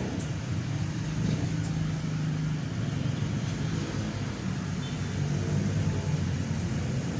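Steady low engine hum heard from inside a stopped car, with motorcycles and cars passing on the road in front.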